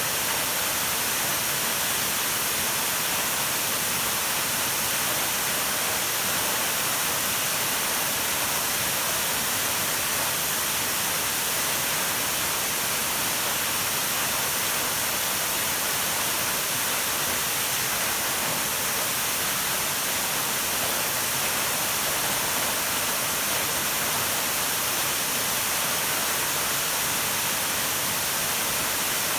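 Large waterfall on the Kinugawa River: a steady, unbroken rush of falling water, hissy and even, with little low rumble.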